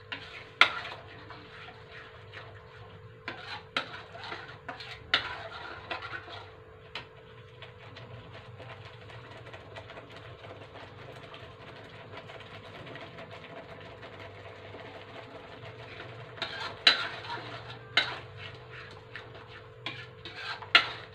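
Spatula scraping and clicking against a wok while frying spice paste is stirred, over a faint sizzle and a steady hum. The clicks come in bunches at the start, stop for several seconds in the middle, and start again near the end.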